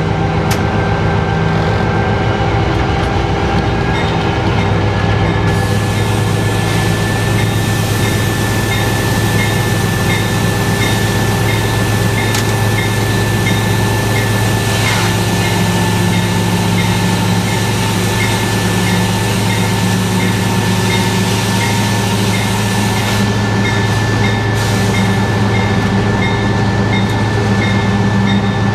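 Diesel-electric locomotive running steadily, heard from inside its cab as the train moves, a constant low drone with a steady higher hum over it.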